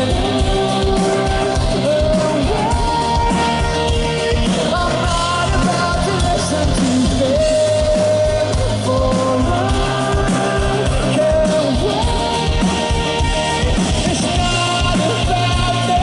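Live rock band playing: a male lead singer's sung melody over drums, bass and guitar, with a steady beat, heard through the crowd.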